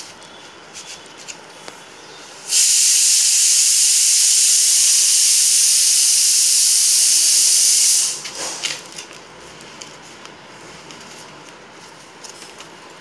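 A loud, steady hiss that starts sharply about two and a half seconds in, holds for about five and a half seconds, and cuts off abruptly. Faint scattered clicks come before and after it.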